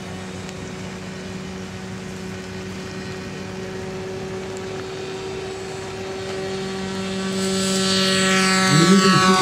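Radio-controlled model airplane's engine and propeller running at a steady pitch during the takeoff run. The sound grows louder from about six seconds in as the plane lifts off, and its pitch sweeps as it passes close near the end.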